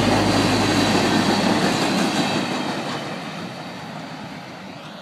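Freight train's empty flatcars rolling past on the rails, then fading away steadily from about halfway through as the end of the train goes by.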